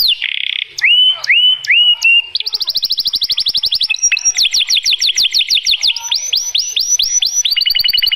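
White domestic canary singing a continuous song of changing phrases, each phrase one note repeated many times. A short buzzy note comes first, then a few rising whistles, a very fast trill, a run of quick downward-sweeping notes, and a fast trill again near the end.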